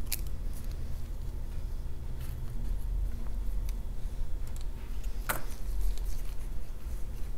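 Steady low hum with scattered small clicks and taps of tweezers and a phone logic board being handled on a silicone repair mat; the sharpest click comes about five seconds in.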